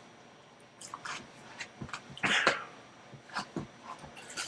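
A person eating macaroni and cheese from a metal bowl with a spoon: scattered small clicks of spoon and mouth, with a short loud breath through the nose about two seconds in.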